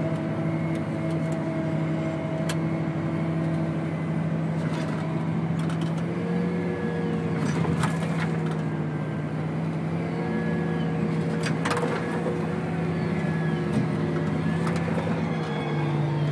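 John Deere 8270 tractor's six-cylinder diesel engine running steadily under load while towing a laser-guided levelling bucket, with a few sharp knocks.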